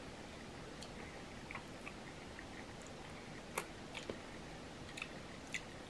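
Faint clicks and cracks from a boiled shellfish shell being picked apart by hand. The sharpest crack comes about three and a half seconds in.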